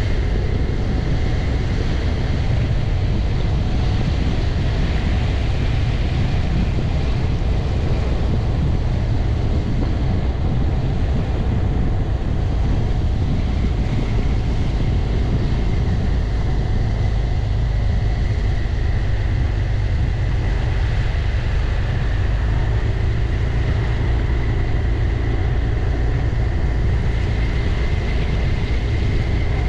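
Riding on a BMW C 400 X single-cylinder scooter: steady wind rumble buffeting the windscreen-mounted camera, with the scooter's engine running underneath and a faint high whine.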